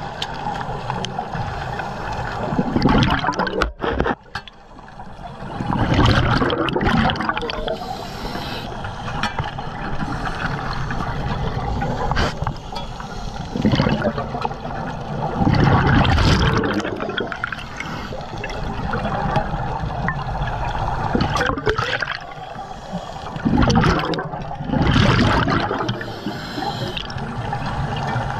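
Scuba diver's regulator breathing underwater: loud gushing bursts of exhaled bubbles every few seconds over a steady watery rush.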